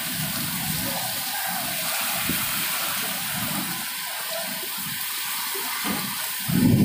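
Storm of heavy rain and strong wind: a steady rushing hiss.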